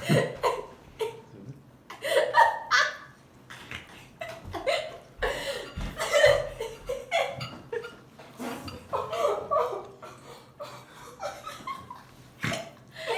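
People laughing in repeated short bursts, with chuckles between.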